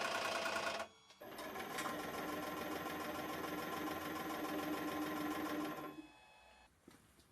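A 100-ton hydraulic press's motor and pump run with a steady mechanical hum. It runs briefly, stops for a moment, then runs again for about five seconds before cutting off about six seconds in.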